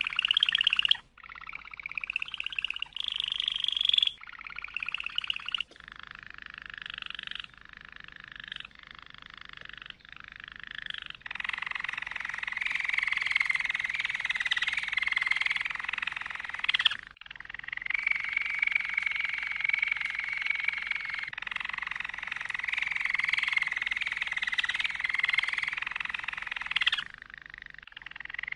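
Domestic canary singing: a run of short trilled phrases, each a second or two long and changing from one to the next, then two long continuous rolls lasting several seconds each, split by a brief break midway.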